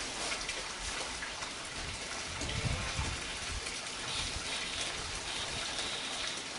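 Black plastic pond liner rustling and crinkling as it is pulled and spread by hand, an even crackly hiss.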